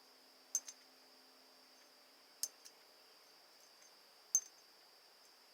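Thin steel lockpick blank clicking against a large magnet: three small, sharp metallic clicks about two seconds apart, as the blank is tested for how much steel it holds.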